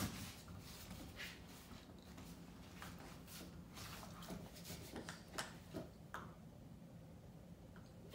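Puppy chewing on a rubber chew toy: faint, scattered clicks and soft squishy gnawing, with a few sharper knocks a little past halfway.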